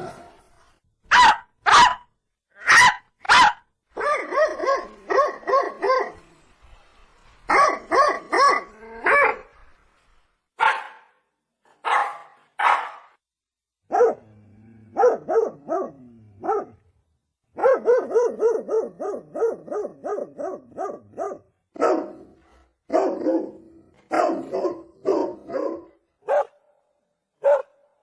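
Dogs barking: single loud barks about a second apart alternate with quick runs of several barks a second.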